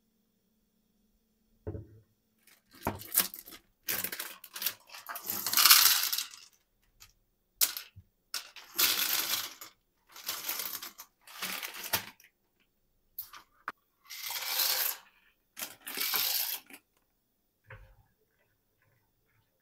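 Plastic pasta bag crinkling and dry pasta pouring out into a container, in a series of short bursts with pauses between them.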